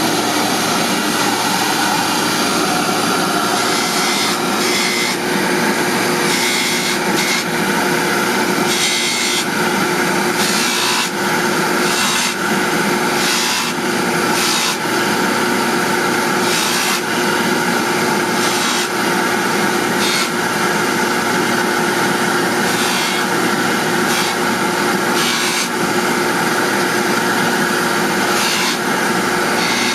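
Jeweler's bench polishing motor running steadily while a ring is held against the spinning polishing wheel. The ring is pressed on again and again, giving short hissing rubs every second or two over the motor's steady hum.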